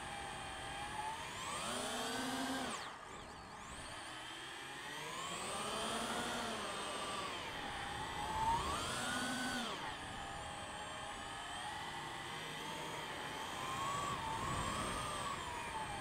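DJI FPV drone's motors and propellers whining, the pitch rising and falling with the throttle in about four swells. The loudest moment is about halfway through.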